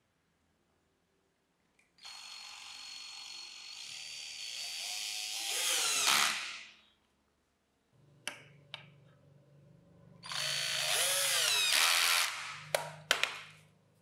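Cordless drill driving screws through steel L-shaped corner brackets into a pine table frame. There are two runs of the motor whirring, each slowing and dropping in pitch as the screw seats, and a few sharp clicks between and after them.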